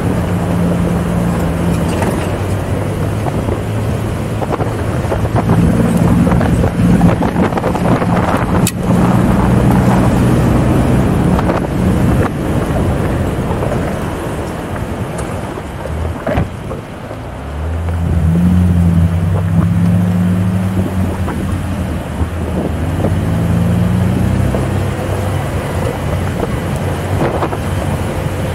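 Jeep engine running and revving under load as it crawls over rocks, the revs climbing about two-thirds of the way through. A couple of sharp knocks stand out along the way.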